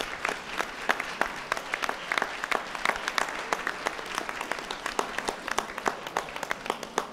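Audience applauding: many hands clapping in a dense, uneven patter that keeps up at a steady level.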